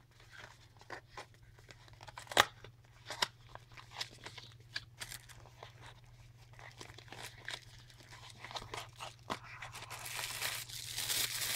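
Paperboard packaging being opened by hand, with scattered clicks, scrapes and one sharper snap, then plastic bags around the accessory cables crinkling more densely and louder near the end.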